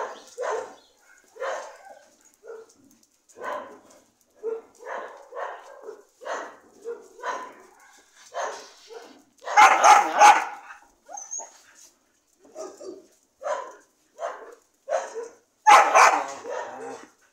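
Dogs barking in short, repeated barks, with two louder bouts of barking, one about ten seconds in and one near the end.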